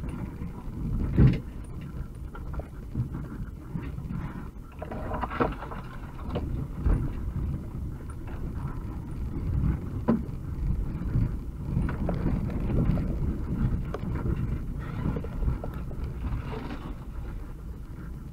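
UAZ-2206 van driving over a rough forest dirt track, heard from inside the cab: the engine runs under a steady rumble, broken by frequent knocks and rattles from the body as it bumps over ruts, the loudest about a second in.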